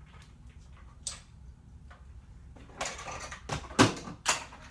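Plastic toy shotgun and its toy shells being picked up and handled. Scattered light clicks give way to rustling and clattering, with two sharp knocks near the end, the first of them the loudest.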